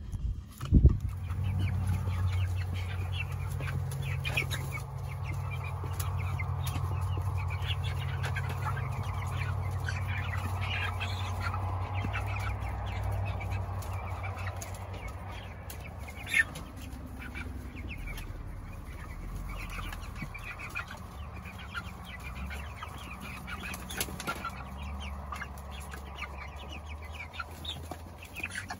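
A brood of chicks peeping: many short, high chirps overlapping continuously. A steady low hum runs under the first half, and a sharp bump sounds about a second in.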